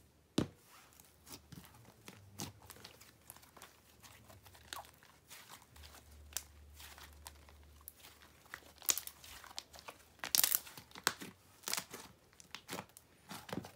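Green slime with clay and black glitter being kneaded, stretched and folded by hand: irregular crackling clicks and pops, busier and louder in the last few seconds.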